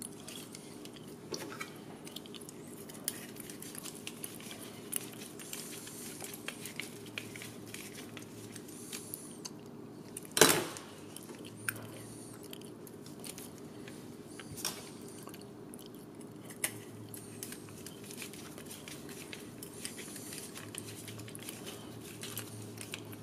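Small clicks and creaks of a hand-held Phillips screwdriver driving tiny self-tapping screws into a plastic part, with a sharper knock about ten seconds in, over a steady low hum.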